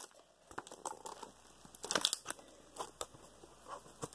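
A broken, taped-up laptop keyboard being twisted and pulled at: faint irregular crackling and clicking of plastic and tape, busiest about halfway through.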